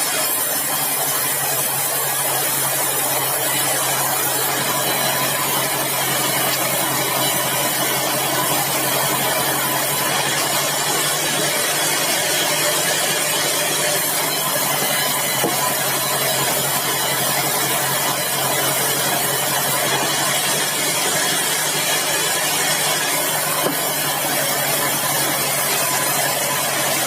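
Sawmill machinery running steadily: a constant loud mechanical drone with a low hum underneath, unchanging throughout.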